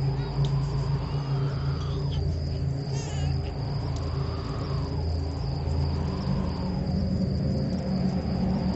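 Crickets chirping steadily over a low sustained drone that swells and fades about every two seconds.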